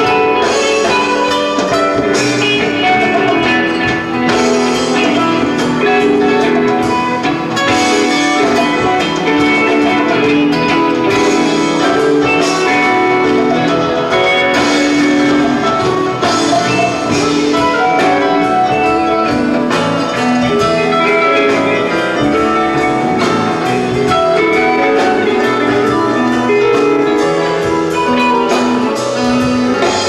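A live rock band playing, with electric guitars, keyboards and drums with hand percussion, full and steady throughout.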